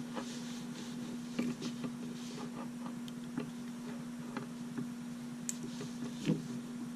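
Small clicks, taps and rustles of hands handling a tiny aluminium keychain flashlight and its batteries, with a steady low hum underneath; the loudest click comes about six seconds in.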